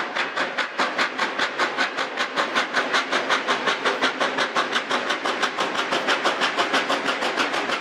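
Steam locomotive exhaust chuffing in a fast, even beat of about five to six chuffs a second, quickening slightly as the engine picks up speed.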